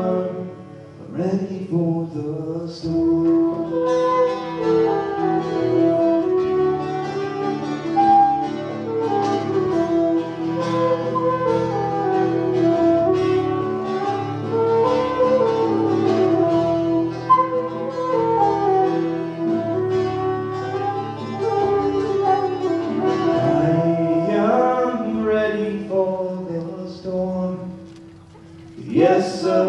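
Instrumental break in an Irish folk song: a tin whistle plays an ornamented melody over a steady held note from acoustic guitar, with hand-drum accompaniment.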